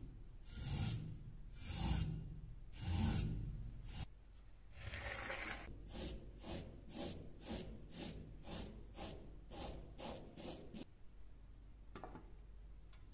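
Small wire brush scrubbing rust off steel: three slow, heavy strokes on the rusted knife blade, then quick, even back-and-forth strokes, about three a second, on a small rusty metal fitting, stopping about eleven seconds in.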